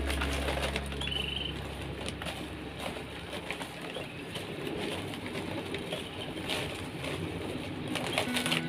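Soft rustling and scraping of hands working planting medium around a bonsai's roots, with scattered light clicks.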